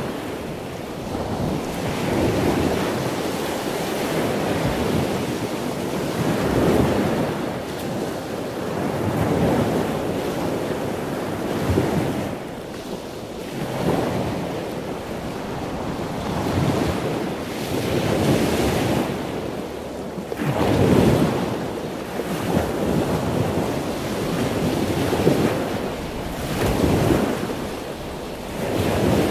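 Rushing surf and wind noise that swells and fades every two to three seconds.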